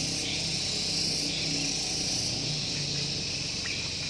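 Steady chorus of insects, crickets or cicadas, making a continuous high buzz.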